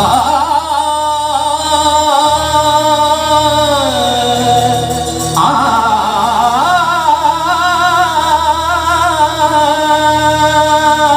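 Devotional bhajan music: a voice holds long, wordless notes with a wavering vibrato over a steady low drone, starting a new phrase about halfway through.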